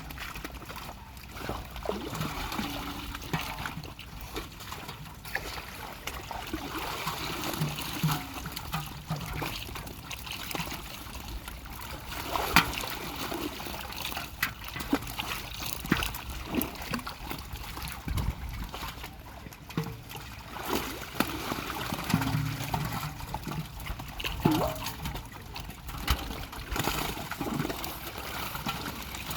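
Pond water splashing and trickling, with many small irregular splashes and drips, as in water sloshed and stirred during net fishing.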